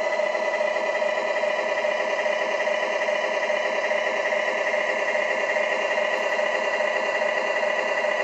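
Electronic engine-sound module of an RC Mercedes-Benz Actros model truck playing a steady diesel idle through its small loudspeaker.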